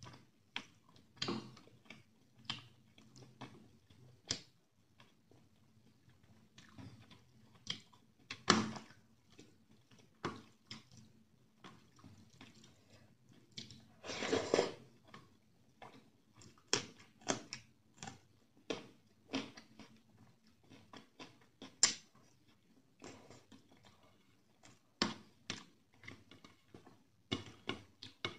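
Close-miked chewing and wet mouth smacks of a person eating rice and chicken curry by hand, as irregular short sharp smacks with two louder, longer sounds about a third and halfway through.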